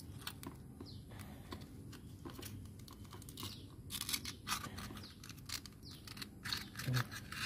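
Oyster shell being cut and pried open with kitchen scissors: irregular clicks and crunches of the blades biting and snapping at the shell edge, busiest about halfway through and again near the end.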